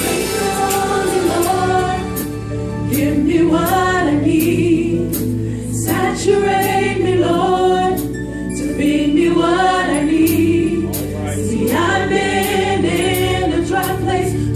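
Gospel choir singing over a band, with a steady beat.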